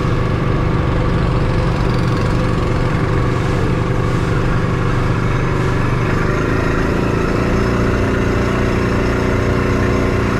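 A vehicle engine running steadily at a constant speed.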